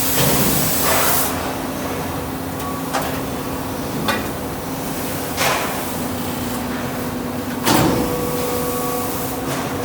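DC350T die-casting machine running: a steady hum with a strong hiss in the first second, then a sudden knock or hiss every second or two, the loudest about three-quarters of the way through.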